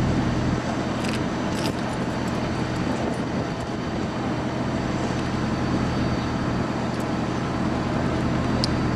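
Steady outdoor background noise, like road traffic, with a few faint clicks about a second in and near the end.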